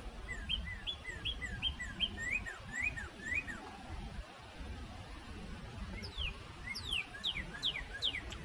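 Small songbirds calling in woodland: a quick run of short chirps, then after a pause a series of down-slurred notes, over a low rumble.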